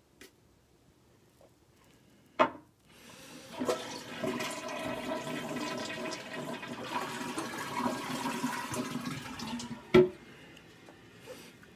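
A sharp click, then water rushing for about seven seconds, ended by a loud thump.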